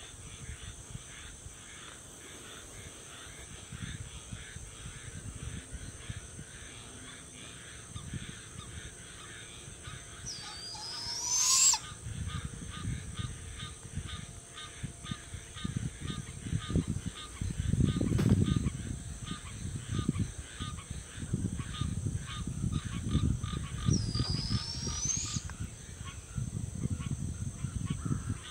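Juvenile barred owl giving two rising screeches, its begging call to its parent: once about a third of the way in and again toward the end.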